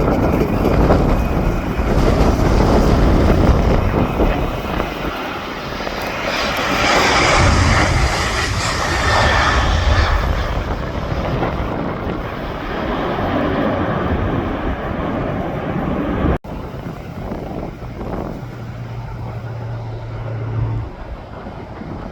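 An airliner passing close: a loud rush of engine noise with a whine that peaks about halfway through, then fades. Wind rumbles on the microphone throughout.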